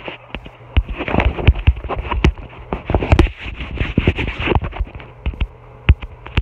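Phone handling noise: a rapid run of knocks, rubs and crackles from fingers gripping and shifting the phone over its microphone. It is thickest through the middle seconds and thins to a few single knocks near the end.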